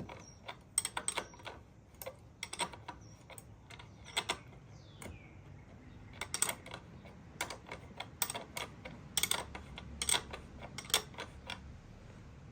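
Hand socket ratchet clicking in short irregular runs of sharp clicks as a dirt bike's rear wheel bolt is tightened after the chain tension is set.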